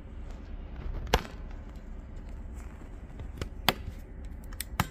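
A few sharp taps, the loudest about a second in, again a little past halfway and once more near the end, over a low steady hum.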